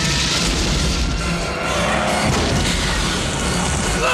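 Action-film trailer mix: dramatic music under loud crashes and booms, with glass shattering as a car smashes through a plate-glass front near the start.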